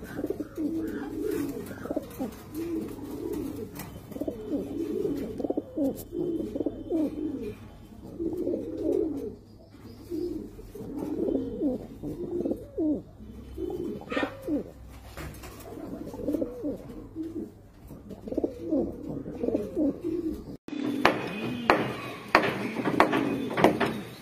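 Domestic pigeons cooing over and over, in low rolling phrases one after another. Near the end, after a cut, a quick run of sharp clicks or taps sounds along with the cooing.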